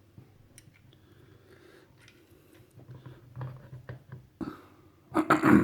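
Small clicks and knocks of strut parts being handled as the top mount goes onto the strut, then a short loud burst near the end.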